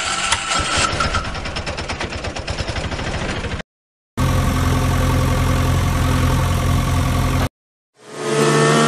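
Vehicle engine sound effects in edited pieces with abrupt cuts. First a fast, rattling ticking engine for about three and a half seconds, then after a short break a steady idling hum. After a second break, near the end, an engine fades in and revs up with rising pitch.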